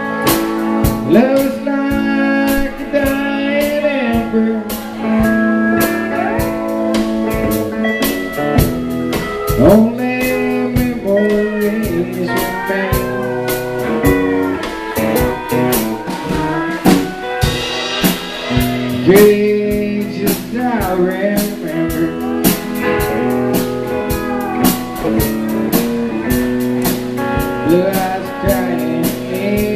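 Live band playing a blues number on electric guitar and drum kit.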